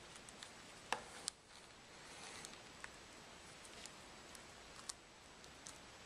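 Razor blade working under the cracked front glass of a Samsung Galaxy S3, faint scraping with scattered small clicks and ticks of the glass, two sharper clicks about a second in.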